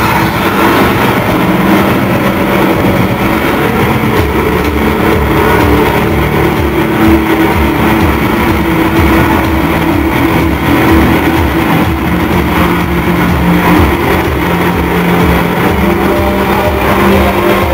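Loud, distorted live industrial rock played through a club PA, with held droning low notes over a pounding, steady beat and no clear vocals.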